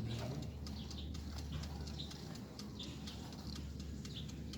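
Small birds chirping in short repeated calls over a steady low hum, with faint scattered clicks.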